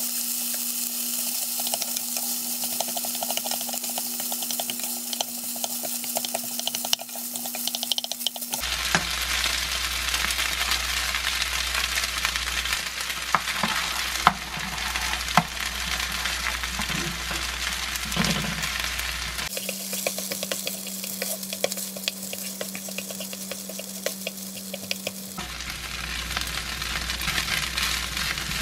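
Fried rice with shrimp sizzling in a nonstick frying pan, stirred and scraped with a spatula, the spatula clicking against the pan now and then.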